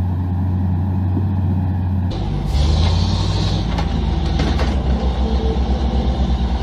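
Heavy machinery engine running. About two seconds in the sound changes abruptly to another engine note, which then settles into a fast, even low pulsing.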